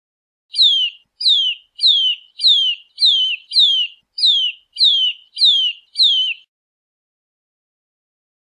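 Eurasian nutcracker calling: a run of ten short, high notes, each sliding downward, about two a second, stopping about two seconds before the end.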